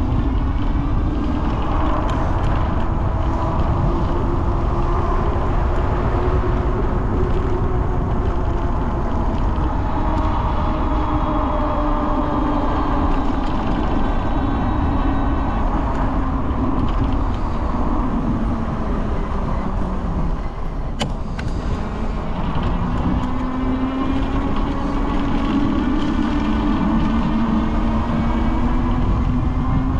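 Motor vehicle running, with steady low road rumble and an engine tone that rises and falls. The tone drops away around twenty seconds in and climbs again a few seconds later.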